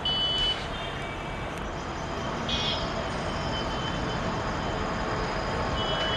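EMD WDP4 diesel locomotive with its two-stroke 16-cylinder 710 engine humming steadily as it approaches slowly. Brief high-pitched tones sound in the first half second and again about two and a half seconds in.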